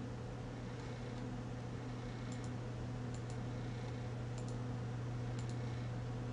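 Faint computer mouse button clicks, in quick pairs four times, over a steady low hum.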